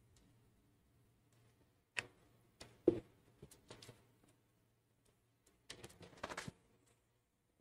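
Board duster rubbing and knocking against a whiteboard as writing is erased: a sharp tap about two seconds in, a louder knock about a second later, and a few short wiping strokes around six seconds, all faint.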